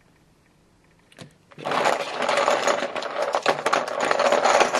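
Dice rattling rapidly as they are shaken in a plastic bowl to pick a random team, starting about a second and a half in and carrying on steadily.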